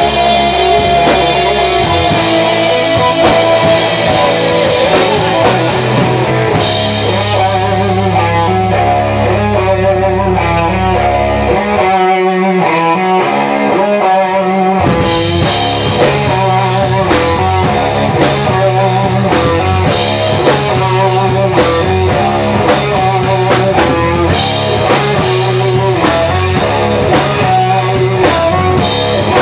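Live rock band playing with electric guitar, bass guitar and drum kit. The cymbals drop out about seven seconds in and the bass drops out a few seconds later, leaving the guitar alone briefly before the full band comes back in around the middle.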